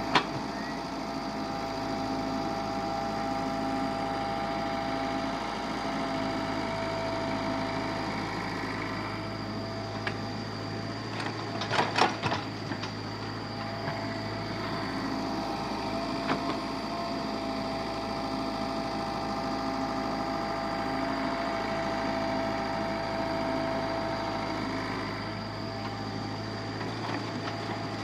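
Steady whining hum of running machinery motors holding several constant tones, with a brief clatter of knocks about twelve seconds in and a lighter knock a few seconds later.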